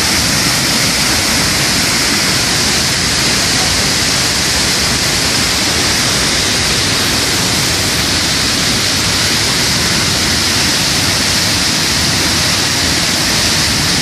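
Monsoon-swollen waterfall in flood, its muddy torrent pouring down with a loud, steady rushing of water.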